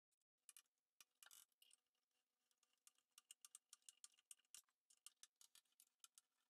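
Very faint, irregular clicking of a screwdriver turning screws through the base board into the side panels of a Dobsonian telescope mount, a few clicks a second, over a faint steady hum.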